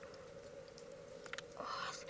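Faint wet clicks, then a short scraping rustle near the end, as an opened freshwater mussel is handled, over a steady faint hum.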